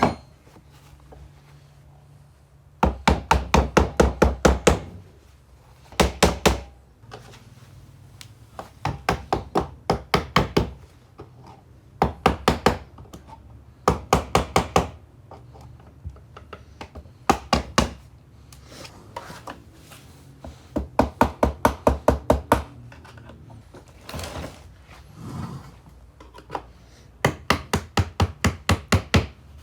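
Rapid knocking on a hard object, about five strokes a second, in short runs of one to two seconds with brief pauses between them, over a faint low hum.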